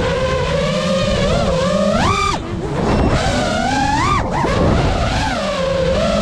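FPV freestyle quadcopter's motors whining, the pitch wavering with the throttle and rising sharply in two quick punches, about two and about four seconds in. A low rushing noise runs underneath.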